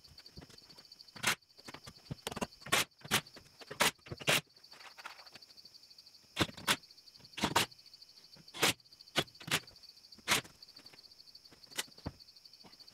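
Crickets trilling steadily, a fast even pulsing high tone, under a series of about fifteen sharp, irregular knocks and clacks, the loudest of them grouped between about one and four seconds in and again around six to ten seconds in.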